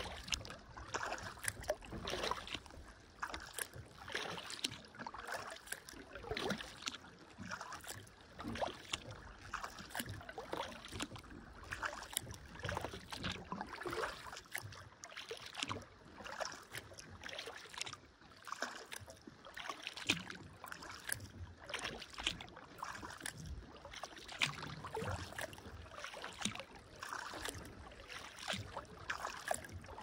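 Kayak paddle strokes dipping and splashing in water, in a steady rhythm of about one stroke a second, with dripping between strokes.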